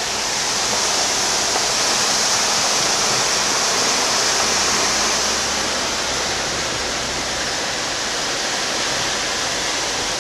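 Steady rushing noise inside a moving vehicle driving over a rough, unpaved road: tyre, road and wind noise with a faint low engine hum underneath.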